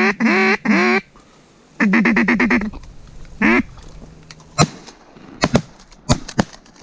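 A mallard duck call blown loudly, calling to incoming ducks. It gives a string of long quacks, then a fast chattering run, then one more quack. From about four and a half seconds in comes a rapid series of sharp cracks: shotgun fire at the ducks.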